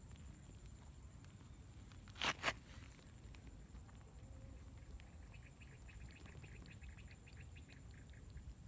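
Quiet outdoor ambience with a faint, steady high-pitched tone. A little over two seconds in come two short, loud scuffing noises, and from about five seconds in there is a quick run of faint ticks, several a second.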